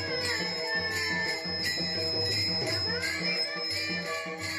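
Devotional Warkari bhajan: boys' voices singing a bending melody while taal, small brass hand cymbals, are struck together in a steady quick rhythm and ring. A low regular beat runs underneath.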